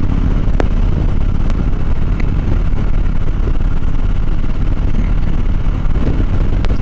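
2014 Harley-Davidson Dyna Fat Bob's air-cooled V-twin engine running steadily at cruising speed, heard from a helmet-mounted camera with wind rushing over the microphone. A couple of sharp clicks come through, one under a second in and one near the end.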